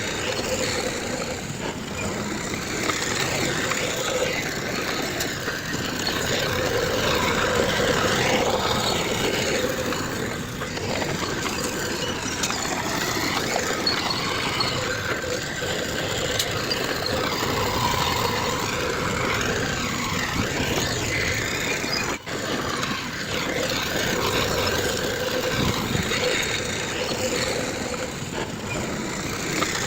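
Heavy diesel earthmoving machinery, a bulldozer and dump trucks, running steadily, with a faint steady hum in the engine note. The sound cuts out for a split second about 22 seconds in.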